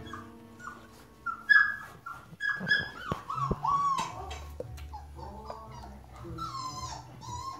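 Young golden retriever puppies whimpering and squeaking while nursing, in many short cries that bend up and down in pitch.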